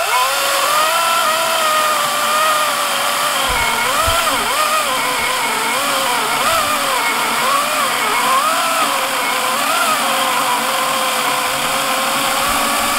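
Wild Badger 40-volt cordless electric chainsaw cutting through a log of dense oak about 7 inches across: a steady motor whine whose pitch dips and recovers over and over as the chain bites under load.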